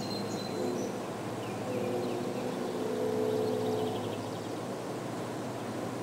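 Distant locomotive air horn sounding faintly: a few held chord notes that come and go over a steady rush of train noise.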